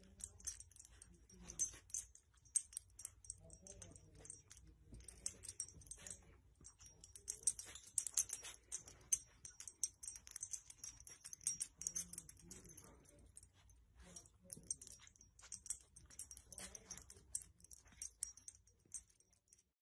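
Quiet rustling and small irregular clicks of fabric as a small dog shifts about on blankets.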